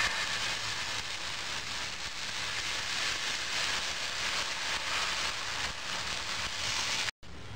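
Oats dosa batter sizzling steadily on a hot tawa as it is poured and spread round with a ladle, broken by a brief dropout near the end.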